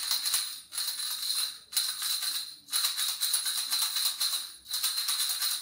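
A hand-held ring of small jingle bells shaken in a run of bursts, with short breaks between them about once a second.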